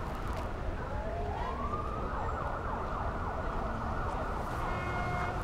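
Emergency-vehicle siren, its pitch rising in a long wail and then switching to a fast up-and-down yelp, over a steady low city rumble.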